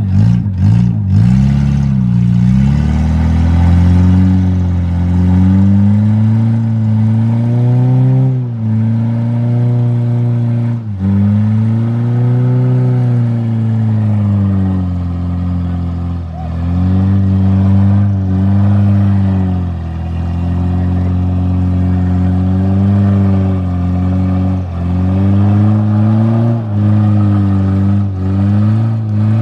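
Off-road 4x4 engine revving hard, its revs rising and dipping over and over, with a few sharp drops now and then. A few knocks come in the first second.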